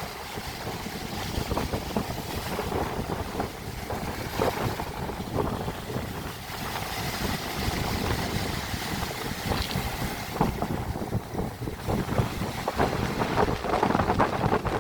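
Sea water splashing and lapping, with many short crackling splashes over a steady rush, and wind buffeting the microphone with a low rumble. The splashes come thicker toward the end.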